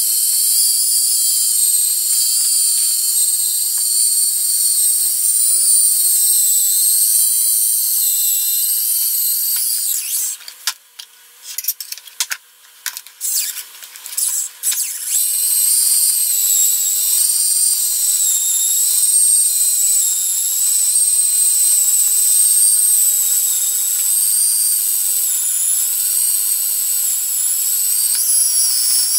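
Cordless hands-free electric can opener running around the rim of a can, a steady, high, slightly wavering motor whine. About ten seconds in it cuts out and sputters on and off for a few seconds, then runs steadily again.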